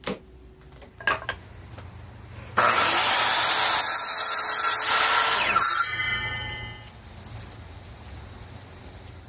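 Sliding compound miter saw cutting through a wooden board for about three seconds, then its blade spinning down with a falling whine. A couple of light knocks come before the cut.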